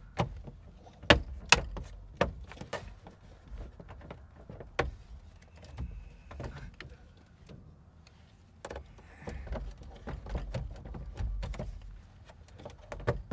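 Scattered sharp clicks and knocks as iPads are fitted into their mounts on a small airplane's instrument panel, over a low rumble.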